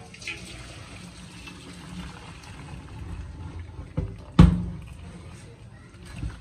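Hot pasta water pouring steadily from a large steel pot through a metal colander into a steel sink, draining boiled pasta. A sharp knock sounds about four and a half seconds in, with a smaller one just before it.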